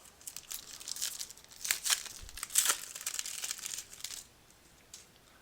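Foil trading-card pack wrapper being torn open and crinkled, a dense crackling for about four seconds that dies away near the end.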